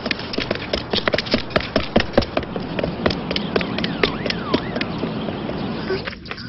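Quick, irregular tapping and clicking footstep sound effects, several taps a second, with a brief drop in level shortly before the end.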